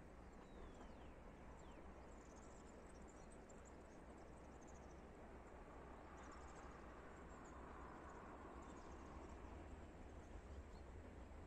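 Near silence: faint rural ambience with small birds chirping now and then, high and thin. A low rumble grows slightly near the end.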